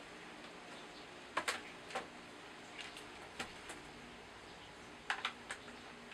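Sparse light clicks and taps on a laptop's keys and touchpad, single presses and quick pairs with pauses between.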